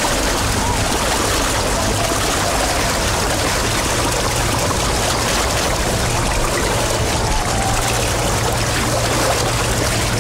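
Steady rushing water noise from the kayak course, with a faint low hum underneath.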